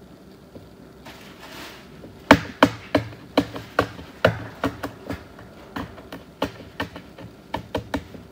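A run of about sixteen sharp taps, two or three a second, starting a couple of seconds in, the first the loudest.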